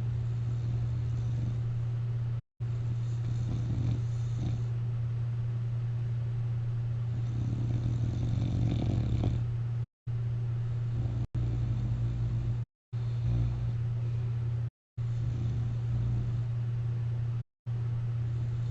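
A person asleep on their back with a CPAP mask on, snoring and breathing over a steady low hum. The snoring is loudest about eight to nine seconds in. The sound drops out to silence for a moment several times.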